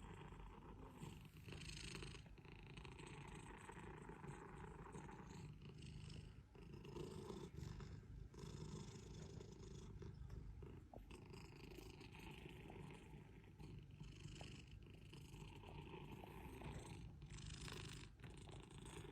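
A cat purring softly and steadily.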